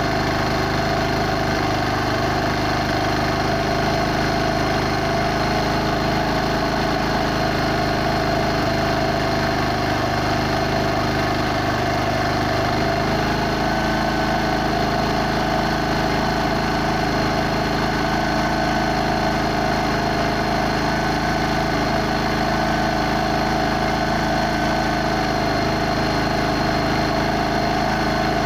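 Bajaj Discover 112 cc single-cylinder four-stroke engine running steadily at a raised idle. Its pitch shifts only slightly while the carburettor air-mixture screw is being adjusted for the highest RPM.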